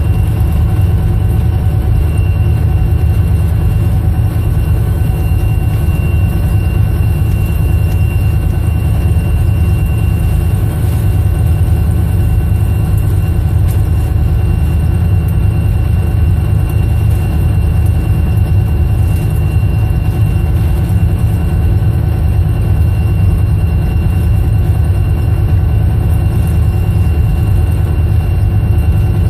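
EMD SD40-2 locomotive's 16-cylinder two-stroke diesel running with a steady, deep drone, heard from inside the cab with the train under way. A faint, thin, steady whine sits over the drone.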